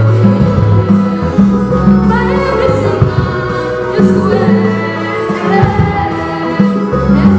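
A women's choir singing through microphones, accompanied by sustained low instrumental bass notes that change about once a second.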